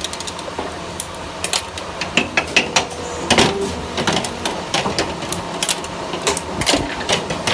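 Irregular metallic clicks and knocks of shoe lasts and tools being handled on a steel worktable, over a steady machine hum in a shoe factory.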